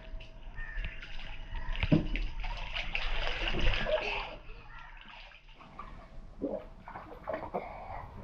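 Water splashing and sloshing in an inflatable paddling pool as a child kicks and swims through it, loudest in the middle, with a sharp knock about two seconds in.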